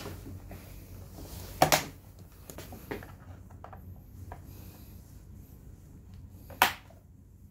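Hand and small-tool work on a scooter's plastic handlebar cover and switch housing: light taps and scrapes, with two sharp plastic clicks, one a little under two seconds in and a louder single one near the end.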